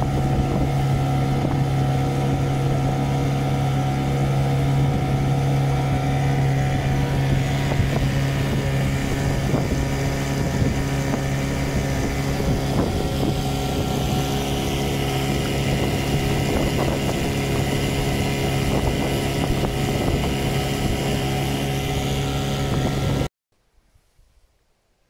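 Motorboat engine running steadily under way, with the rush of wind and water over it. It cuts off abruptly near the end, leaving near silence.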